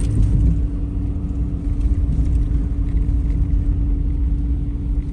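Steady road and engine rumble inside a moving car's cabin, with a constant hum running under it.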